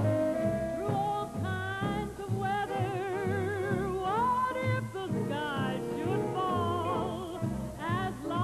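Background music: a sliding, wavering lead melody over a steady bass beat.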